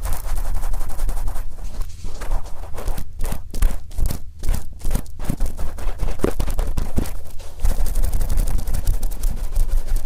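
Wet, oiled cotton swab rubbing over the ear of a binaural microphone, close up: dense crackling and scratching with rapid clicks and a low rumble. Around the middle the rubbing breaks into separate short strokes.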